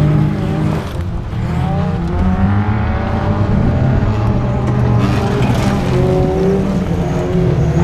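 Engines of several old race cars running hard on a dirt track, their pitch rising and falling as they rev through the turns. One car passes close about six seconds in, with a rougher hiss of spraying dirt.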